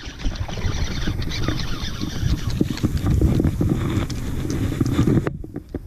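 Wind buffeting the microphone in an irregular low rumble, with scattered knocks and splashes as a fish is reeled in and swung from the water into the boat. The sound drops off suddenly near the end.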